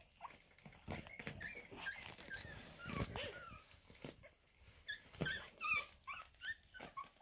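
Two-and-a-half-week-old Havanese puppies squeaking and whimpering in many short, high, wavering cries. A few soft bumps are heard as they jostle.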